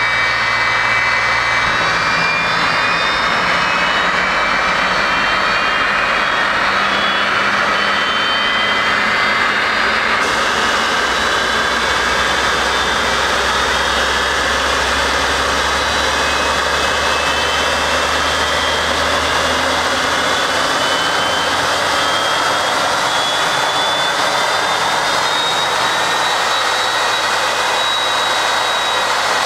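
Airliner's turbofan jet engine spooling up during start: a steady, loud rush of air overlaid by several whining tones that rise slowly in pitch.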